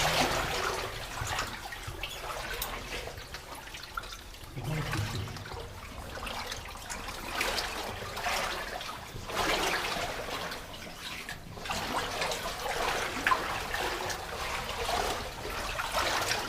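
People wading through floodwater, the water sloshing and swishing with each stride in a repeating swell about every second or two.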